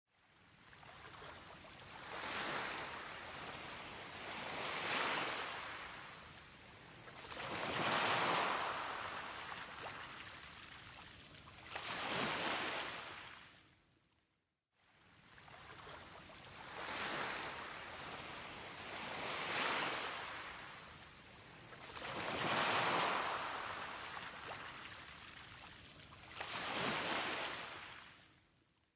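Ocean surf washing in and out in slow swells, each rising and fading over a few seconds. It cuts out briefly halfway through and then the same sequence of waves repeats.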